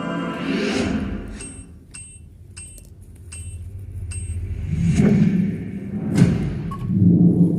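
Trailer-style sound design: a pitched swell, then a run of sharp, high ticks, then three heavy low booms.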